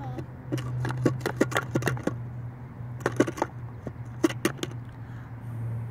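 Hard plastic wand clicking and rattling against a plastic bubble-toy tub as it is worked in and out of the slot, in two flurries of quick clicks, over a steady low hum.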